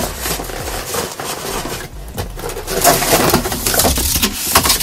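Cardboard box being turned upside down and pulled off a packed appliance: cardboard scraping and flapping with plastic wrapping rustling. The crackling rustle is busiest in the second half.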